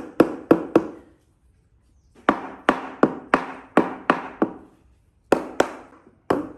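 Repeated sharp blows of a hand tool on wood, about three a second, in three runs with short pauses between them.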